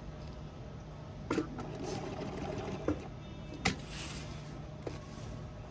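Sewing machine stitching a tape onto heavy uniform fabric: a steady motor hum, louder for a couple of seconds in the middle, with a few sharp clicks.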